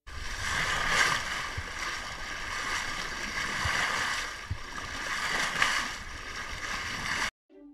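Water rushing and splashing against a sailing yacht's hull as it moves through the waves. It swells with each wave about every two seconds and stops abruptly near the end.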